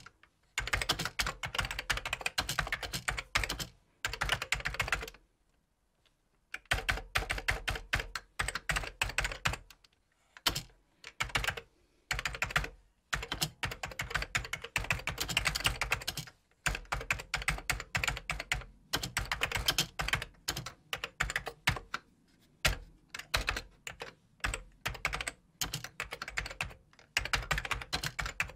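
Typing on a computer keyboard: fast runs of key clicks broken by short pauses, the longest a gap of about a second and a half near the quarter mark.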